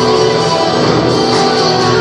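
Recorded French musical-theatre song playing: a steady instrumental stretch between sung lines, with no singing.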